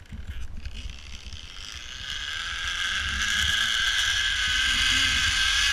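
Zipline trolley pulleys running along a steel cable: a whirring hiss that builds over the first couple of seconds as the rider picks up speed, then holds steady, over a low rumble.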